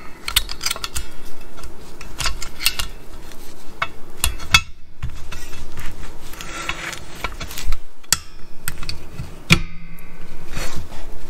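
Metal clicking, clinking and scraping from the springs, shoes and hold-down hardware of a Volkswagen Mk3 rear drum brake as they are levered and clamped into place with locking pliers and a screwdriver. A stretched spring rings briefly near the end.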